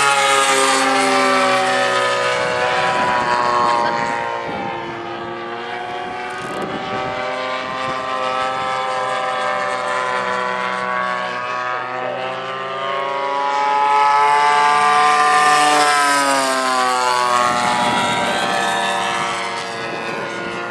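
Two radio-controlled model airplane engines, a nitro glow engine and a large gasoline engine, running hard in a pylon race, their two engine notes overlapping. The sound swells and the pitch drops as the planes pass close, once near the start and again about three-quarters of the way through.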